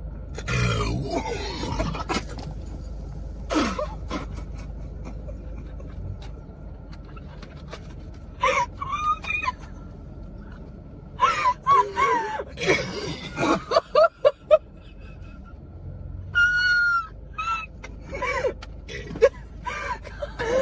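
Young women laughing helplessly in fits, with high-pitched giggles, gasps for breath and breathy squeals, and quieter pauses between the fits.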